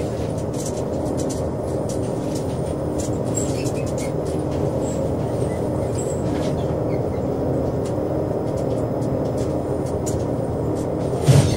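Steady drone of a beam fishing trawler's engine heard inside the wheelhouse, with scattered light clicks and rattles and one louder knock just before the end.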